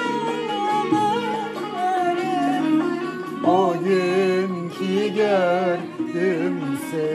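A Turkish art-music song: a voice sings an ornamented melody with vibrato over instrumental accompaniment, starting a new phrase about halfway through.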